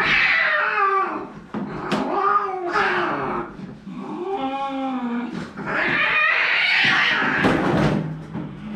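Angry cat yowling, a string of long, wavering yowls, the sound of a defensive, aggressive cat resisting being handled.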